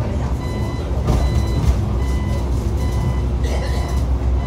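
A Xiamen King Long XML6125 hybrid city bus running with a steady low rumble, while a short electronic warning beep repeats over it.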